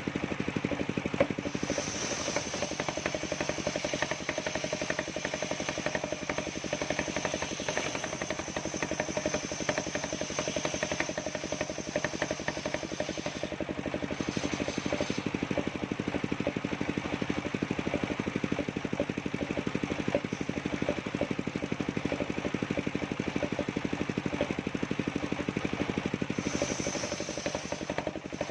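Engine-driven circular sawmill running steadily, with a high steady whine that drops out for a moment about halfway through and again shortly before the end.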